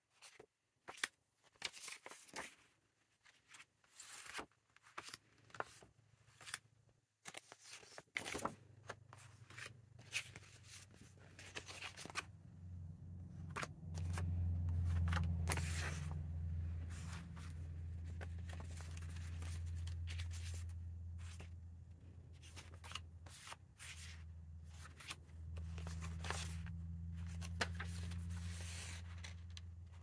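Loose paper sheets and book pages being picked up, shuffled and laid down, with short rustles, flaps and crinkles. A low steady hum comes in about a quarter of the way through and stays under the rustling, loudest around the middle.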